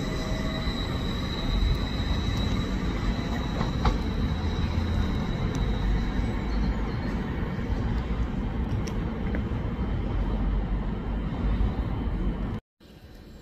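A train running through the station: a heavy, steady low rumble with a thin high whine over it in the first few seconds and a few scattered clicks. It cuts off abruptly near the end.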